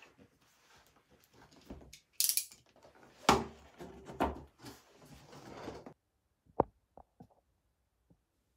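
A cardboard box being handled and opened and a convex mirror taken out: irregular rustling and scraping of cardboard and packing with several knocks. Near the end, a few short, light clicks.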